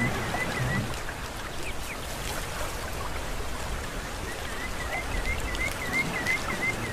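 Outdoor ambience: a steady hiss like rain or running water, with a quick repeated chirp, about four a second, that stops about a second in and comes back in the second half.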